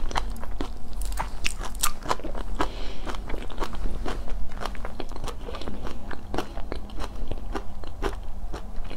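Shrimp shell cracking and crackling as fingers break a whole shrimp in two and peel it. The sound is a dense, irregular run of sharp clicks and crackles, close to the microphone.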